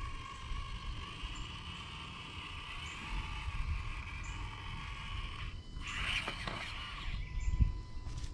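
Axial SCX24 micro RC crawler's small electric motor and gears whining steadily under throttle, cutting off about five and a half seconds in. A short scrape follows, then a thump near the end as the truck comes onto rock.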